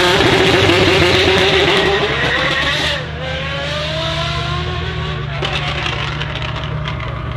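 Apollo Intensa Emozione's V12 revving hard as the car launches and accelerates away. Its note climbs, drops about three seconds in, then climbs again through the gears.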